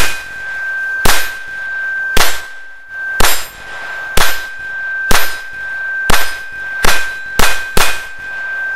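Smith & Wesson M&P 22 Compact pistol firing .22 LR at a hanging steel plate: ten shots, about one a second, then three in quicker succession near the end. Each hit clangs on the steel, which keeps ringing with one steady tone between shots.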